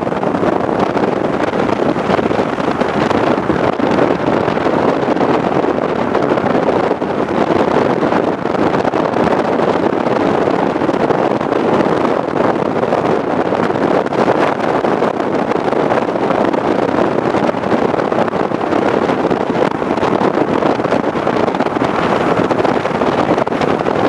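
Strong storm wind blowing across the microphone: a loud, steady rushing noise with no breaks.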